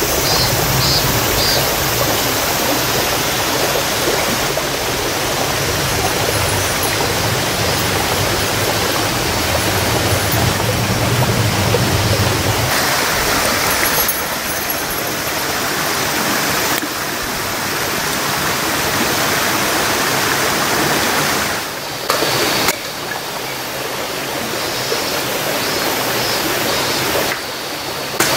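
Shallow stream running over rocks: a steady rush of water that shifts slightly in tone a few times.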